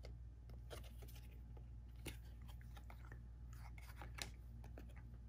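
Faint crisp clicks and rustles of stiff, glossy chrome trading cards being slid apart in the hands and set down on a cloth play mat, irregular and bunched about a second in and again around four seconds in, over a steady low hum.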